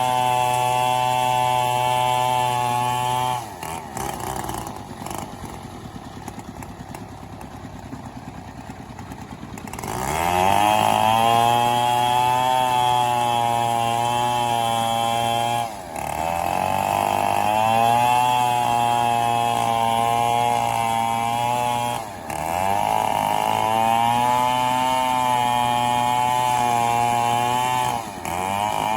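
Two-stroke chainsaw sawing through mahogany at full throttle, its pitch wavering under load. A few seconds in it drops to a pulsing idle for about six seconds. It then revs back up and runs hard again, with brief dips in speed about every six seconds.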